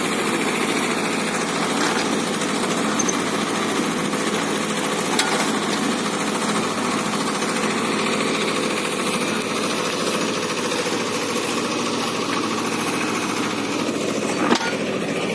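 Swaraj 724 XM tractor's two-cylinder diesel engine running steadily, powering the mini backhoe attachment, with two short knocks, one about five seconds in and a sharper one near the end.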